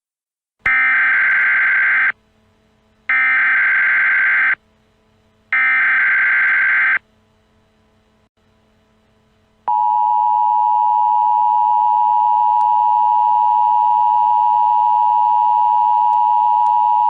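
Emergency Alert System SAME header: three bursts of screechy digital data, each about a second and a half long and about a second apart. About three seconds later the steady two-tone EAS attention signal starts, made of two pure tones held together near 1 kHz, which announces the alert message.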